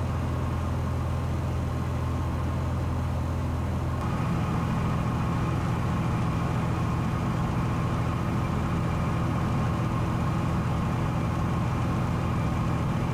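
Steady drone of a Cessna 182's piston engine and propeller heard from inside the cabin in cruise flight. Its tone shifts slightly and grows a little louder about four seconds in.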